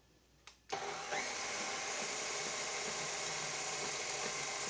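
KitchenAid stand mixer switched on: a click, then its motor starts abruptly and runs steadily with the wire whisk beating egg batter in a metal bowl.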